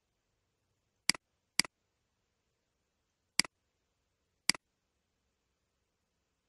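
Computer mouse left button clicking four times: a quick pair about a second in, then two single clicks. Each click is a sharp press followed by a fainter release tick.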